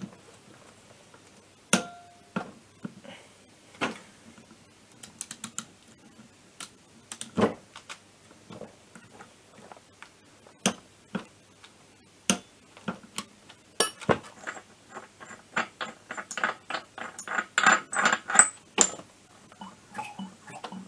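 Hand tools working on a scooter engine's flywheel nut: a wrench and socket make scattered sharp metal clicks and clanks. There is one ringing clink about two seconds in, and a faster run of clicks between about 14 and 19 seconds.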